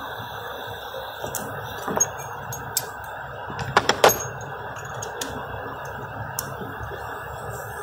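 Steady workshop background noise, with a few scattered sharp metallic clicks and clinks, the loudest a quick cluster about four seconds in.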